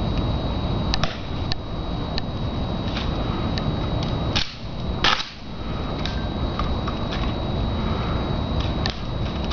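Sharp clicks and slaps of a ceremonial rifle being handled during a guard's rifle inspection, about a dozen separate snaps with the two loudest about four and a half and five seconds in, over a steady background rush.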